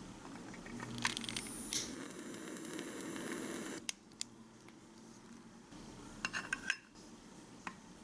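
A butane lighter clicks, then hisses steadily for about two seconds as it lights the miniature stove, and cuts off suddenly. Scattered light clicks and taps of small pieces being handled follow.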